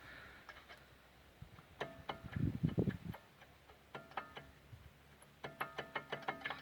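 Front brake pads clicking and clinking against the caliper bracket as they are rocked in it: short metallic clicks with a ringing tone, in little clusters, with a louder dull rustle of handling about two seconds in. The play in the bracket is the cause of the knock in the wheel under light braking.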